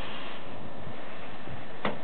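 A Hankyu 3300-series electric train standing at the platform with a steady hiss. Near the end a sharp click comes from the train as its doors begin to open.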